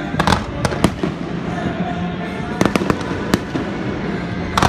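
Aerial firework shells bursting overhead: a string of sharp, irregularly spaced bangs, about eight in all, with a quick cluster of three or four a little past the middle.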